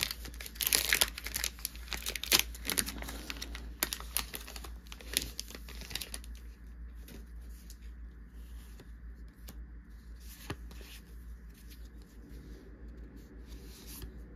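Foil Pokémon booster pack wrapper being torn open and crinkled for about the first six seconds. After that come quieter, sparse clicks and rustles as the cards are pulled out and handled.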